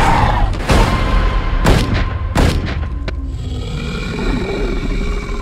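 Film-trailer soundtrack: three heavy booming hits about a second apart, then held music tones with a low rumble underneath.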